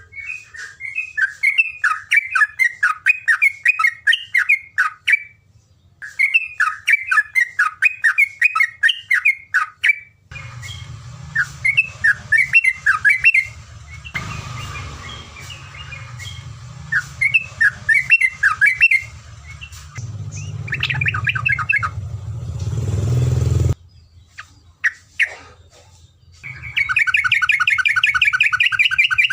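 Terocok (olive-winged bulbul) singing: phrases of quick chattering notes a few seconds long, separated by short pauses, with a steady low hum beneath the middle stretch. Near the end comes one long, rapid, even trill.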